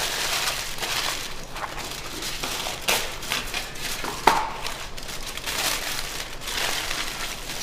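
Aluminium foil being crumpled and crinkled by hand as it is wrapped around a stalk of celery, with a few sharper crackles about three and four seconds in.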